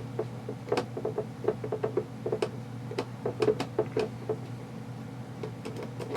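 Small irregular clicks and taps of metal parts and tools being handled while an airsoft rifle's gearbox is taken apart, thick through the first four seconds and thinning out near the end.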